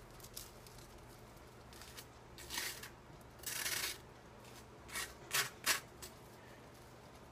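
Butter knife scraping and spreading butter across a slice of toast: a few short, faint scrapes, one longer stroke about three and a half seconds in, then three quick scrapes.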